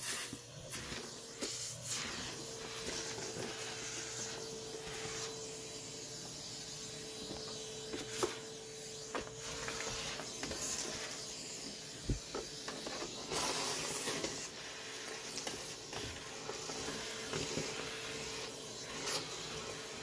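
Vacuum cleaner running steadily with a hiss of suction and a constant hum, sucking crumbs and debris off carpet through its metal wand, with scattered clicks and rattles.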